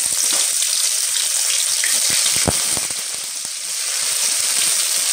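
Hot sesame oil sizzling steadily in a kadai as tempering spices and chopped onion and tomato fry, with a few sharp pops about halfway through.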